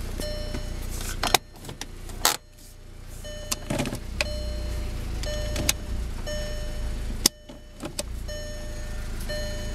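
Mk5 Golf GTI's 2.0-litre turbo four-cylinder idling, heard from inside the cabin, while the DSG automatic's gear selector is clicked through its positions with several sharp clicks. A short electronic warning chime repeats about once a second.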